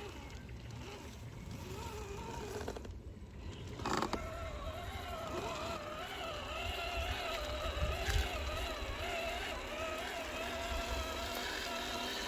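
Electric motor and gearbox of a 1/10 scale RC crawler whining, its pitch wavering up and down with the throttle, from just after a click about four seconds in.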